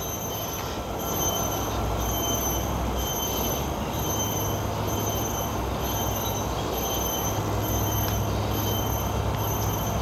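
A steady rumble and hiss of passing traffic that swells about a second in and then holds level, with a low hum underneath.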